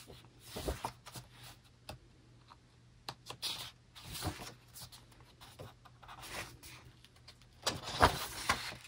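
Pages of an album photobook being turned by hand: paper rustling and brushing in short, irregular bursts, with the loudest page turn near the end.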